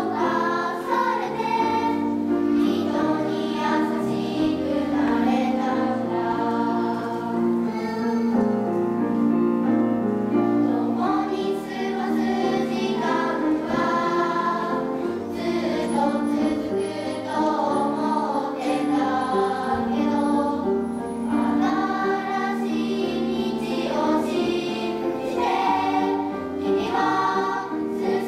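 Children's choir singing a Japanese choral song, with held low notes running beneath the voices.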